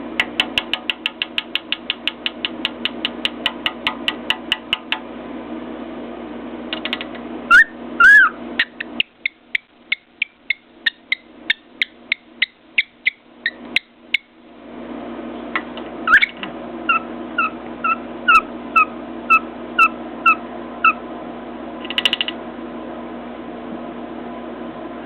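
Cockatiel whistling: fast runs of short, high repeated notes, a couple of rising whistles, then a string of paired two-note whistles near the end. A steady low hum runs underneath and stops for several seconds midway.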